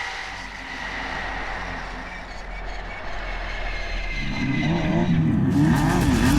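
Off-road race vehicle's engine, faint at first, then running loud from about four seconds in, its pitch rising and falling again and again with the throttle.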